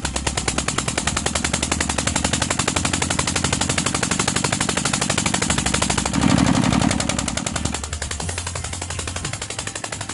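Small single-cylinder stationary diesel engine of a tubewell pump set running, firing in a rapid, even chug. It swells louder and deeper for about a second and a half around six seconds in, then settles back to a slightly softer, steady beat.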